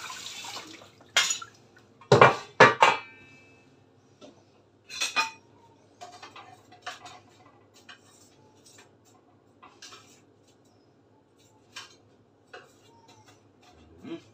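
Metal cookware clattering: a pot lid and frying pan knocked and set down, with a cluster of loud ringing clanks about two seconds in and another pair a few seconds later, then light clinks. A steady hiss stops within the first second.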